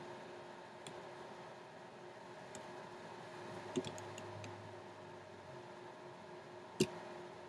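Quiet room tone with a steady faint hum, broken by a few soft clicks, the clearest two about four and seven seconds in.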